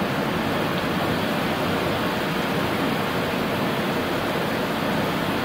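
Steady rushing noise on an Airbus A380 flight deck on short final approach: air streaming past the cockpit at approach speed.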